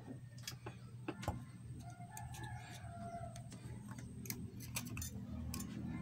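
Faint, irregular clicks and light taps as analog multimeter test probes are handled against the terminals of a microwave oven's high-voltage capacitor, checking it for a short to ground. A low steady hum runs underneath.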